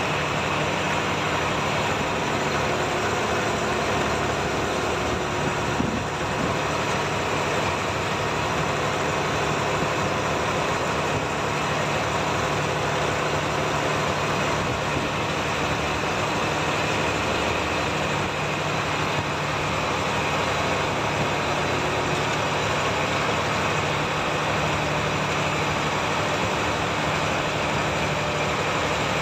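Boat engine running steadily, a constant drone with no change in speed, over the rush of water around the hull.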